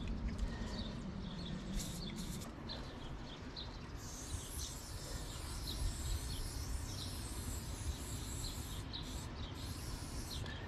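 Aerosol spray paint can hissing as white paint is sprayed onto a brick wall: a couple of short bursts about two seconds in, one long spray of about five seconds from the middle on, then shorter bursts near the end. Birds chirp faintly over a low outdoor rumble.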